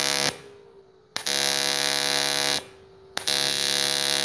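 AC TIG welding arc on aluminium plate, a steady buzz struck in short runs: it stops just after the start, strikes again about a second in for a second and a half, and again near the end. In the gaps a faint steady hum from the welding machine. It is a test burn, at a setting found to be burning hot.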